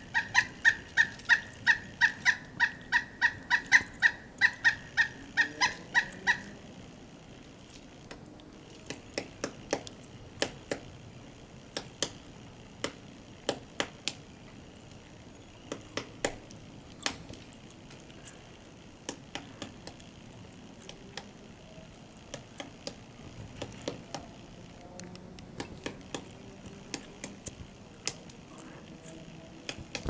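Pileated woodpecker giving a long series of loud, evenly spaced call notes, about three a second, which stops about six seconds in. After that come irregular sharp knocks of its bill striking the wood as it chisels at its feeding hole in the trunk.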